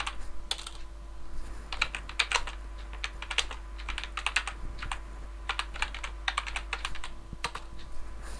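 Typing on a computer keyboard in irregular bursts of quick keystrokes with short pauses between them, over a steady low hum.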